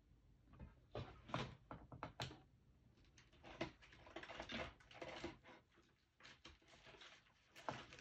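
Faint, irregular taps, clicks and crinkles of sticker sheets and paper being handled while stickers are picked and placed.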